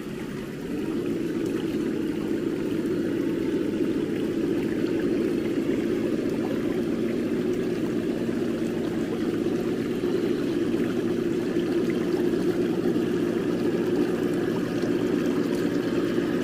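Steady rushing and splashing of water in a shallow rocky stream as RC crawler trucks wade through it. It gets louder about a second in.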